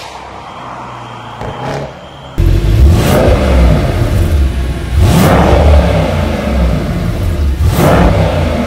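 A car engine heard quietly as it drives off, then the Mercedes-AMG E63S W213's 4.0-litre twin-turbo V8 on its stock exhaust in normal mode, idling with a deep rumble and revved three times, each rev rising and dropping back.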